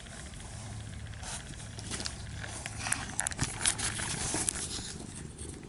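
Rubber pet brush rubbing through a cat's fur and against the cardboard box it lies in: irregular rustling and scratching, with a cluster of sharper scratches from about two seconds in.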